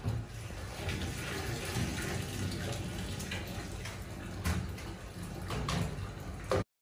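Tap water running into a stainless-steel sink during dish washing, with a few sharp knocks of dishes against the sink. The sound cuts off suddenly near the end.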